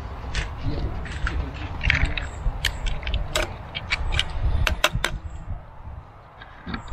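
Irregular clatter of mussel shells and a utensil knocking in a cooking pan as the pasta is worked, over a steady low rumble.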